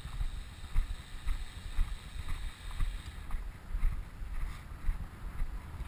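Wind buffeting the microphone: a gusty, uneven low rumble with irregular swells.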